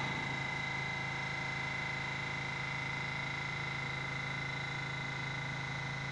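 Stopped R68A subway train idling, its onboard equipment giving a steady electrical hum with a high whine held on one pitch.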